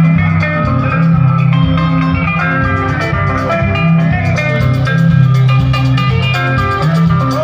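Sungura band playing: quick, interlocking electric guitar lines over a bouncing bass guitar and drums, during a sound check.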